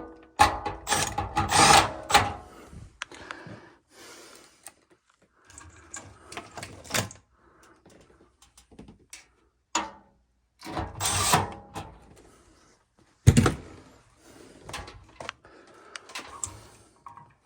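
Hand tools and parts being handled while working on an air handler: irregular clattering, rattling and scraping with short pauses, and one sharp knock about thirteen seconds in.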